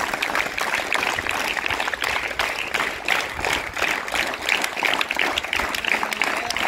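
Applause from a large group of schoolchildren clapping their hands, dense and steady.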